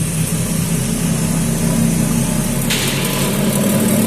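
Nissan X-Trail drivetrain running with a steady low hum, the droning noise that the mechanics trace to a worn rear differential. A hiss joins in near the end.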